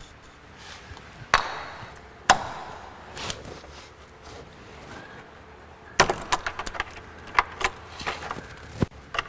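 Sharp metallic clicks and knocks of a hand tool working a rusted fastener under a car. Two loud knocks come in the first few seconds, then a quick, irregular run of clicks near the end.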